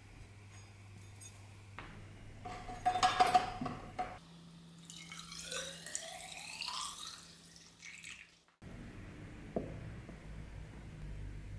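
A short clatter of metal with a brief ringing tone, then liquid poured from a plastic jug into an upright steel pipe for about four seconds. The pitch of the pour rises as the pipe fills with rust remover.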